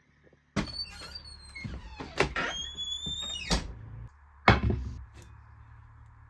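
A door being handled: high creaking squeaks and several knocks and thuds, the loudest thud about four and a half seconds in.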